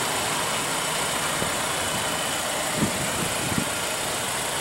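Steady outdoor background hiss, with a few faint soft thumps about three seconds in.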